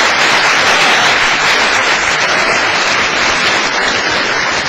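Audience applauding: a dense, steady sound of many hands clapping that eases off slightly near the end.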